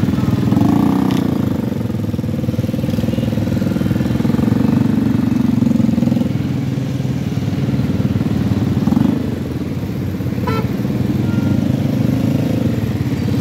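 A small motor-vehicle engine running close by, a steady, rapid low chugging that swells slightly now and then, amid busy night-street traffic.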